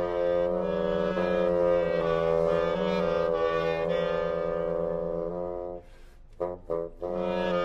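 Contemporary chamber music for flute, clarinet and bassoon: overlapping held notes, with the bassoon sustaining a low line beneath the upper woodwinds. About six seconds in the sound drops away almost to a pause, broken by a few short detached notes, before the held notes return near the end.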